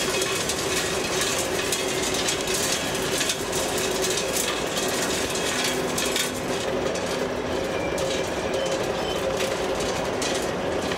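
Electric motors and gearboxes of radio-controlled model construction machines and tractors whining steadily, with frequent clicks and scrapes, over the noise of a busy hall.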